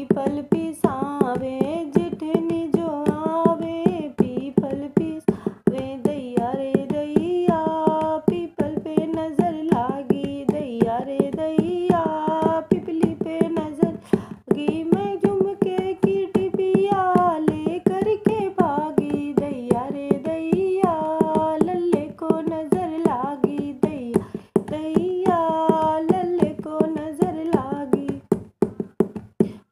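A sohar, a north Indian folk song for a child's birth, sung solo to the steady strokes of a dholak hand drum. The voice pauses briefly near the end while the drumming carries on.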